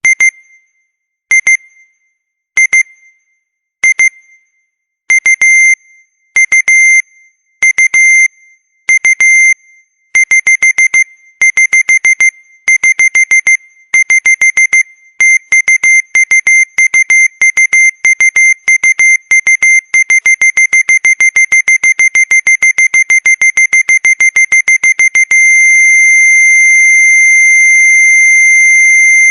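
Old-fashioned alarm beeping on one high tone. It starts with single short beeps a little over a second apart, then goes into bursts of rapid beeps that grow longer and closer together, and merges into one steady unbroken tone about 25 seconds in.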